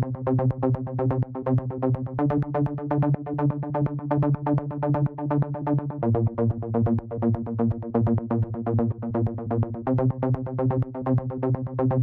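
Electronic background music: a fast, even synthesizer pulse over held low chords that change about every four seconds.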